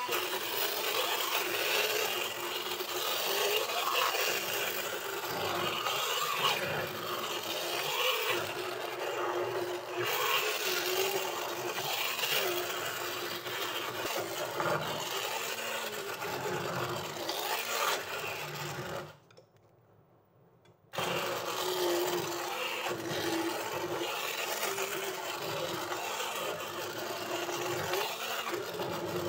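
Hand-held electric stick blender running in a glass bowl of cake batter, its motor hum rising and falling as it works through the mixture. It cuts out for about two seconds partway through, then starts again.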